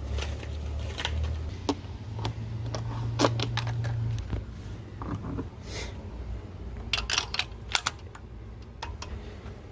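Scattered clicks and light metallic clinks of hand tools and engine parts being handled in a car's engine bay, over a low steady hum that stops about four seconds in.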